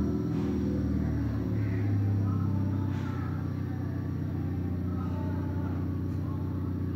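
An engine idling steadily, a low, even drone.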